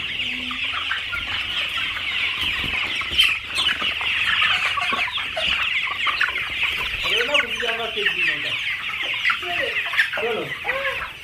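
A flock of chickens on a poultry farm: a continuous, dense high-pitched chatter of many birds at once, with louder, lower clucking calls rising and falling from about seven seconds in.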